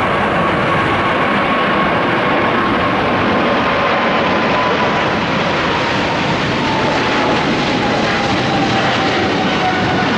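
Boeing 777 twin-engine jet departing under takeoff thrust: a loud, steady engine noise with a thin whine that slowly falls in pitch.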